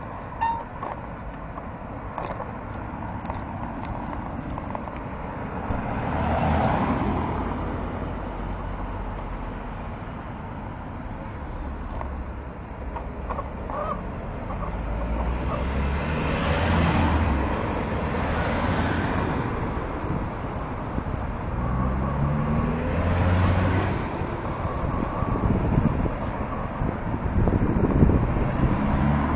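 Town road traffic: cars driving past one after another, each swelling and fading, with a low engine rumble between them.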